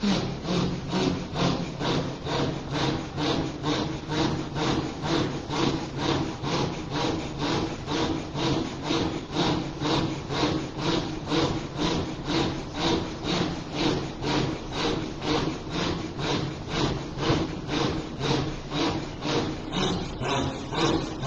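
Rhythmic, forceful breathy chanting of Sufi zikr, a little over two strokes a second, over a steady low hum of voice.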